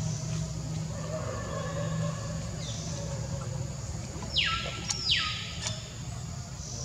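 Two short, harsh animal calls about half a second apart, each sweeping upward and stopping sharply, over a steady low hum.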